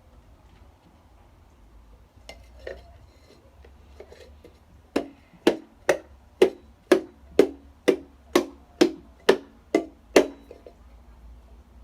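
About a dozen sharp, hollow knocks, roughly two a second, each with a short ring, struck on a household object as a homemade sound effect for going through the forest. Fainter handling clatter comes before the knocks.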